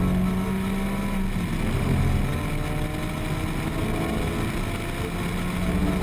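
2004 Porsche 911 GT3's flat-six engine running at speed on track, its pitch sliding down during the first second or so, under a steady rush of wind and tyre noise.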